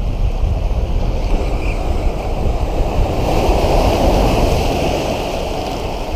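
Ocean surf washing against lava rocks, with wind buffeting the microphone. A wave surges louder about three seconds in and eases off after about five.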